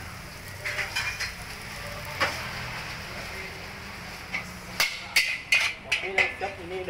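Metal spatula scraping and clanking against an iron wok while stir-frying noodles, over steady stove and frying noise. A few knocks come about a second in, and a quicker run of clanks comes near the end.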